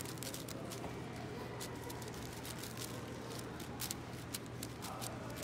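AoShi WRM 6x6 speedcube being turned fast: a stream of irregular clicks from its layer turns. A steady low hum runs underneath.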